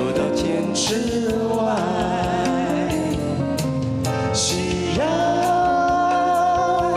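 A male singer sings a slow Chinese-language song live with a band, the vocal over drums and keyboard. About five seconds in he holds one long note.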